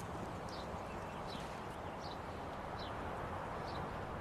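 Steady outdoor background hum with a small bird's short, high, falling chirps, repeating irregularly about every half second to second.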